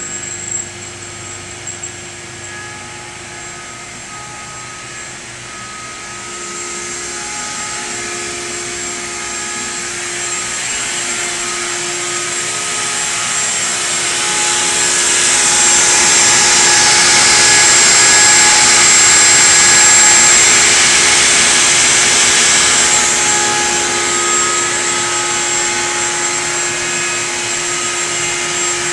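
A metal lathe and a CNC router running at the same time: a steady motor whine with a high cutting hiss that builds, is loudest for several seconds around the middle, then eases off.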